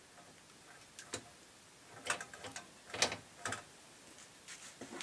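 Irregular mechanical clicks and clacks from a Rock-Ola 443 jukebox mechanism as its motor is turned to line it up with the shaft. The loudest knocks cluster around two to three and a half seconds in, with a few lighter clicks near the end.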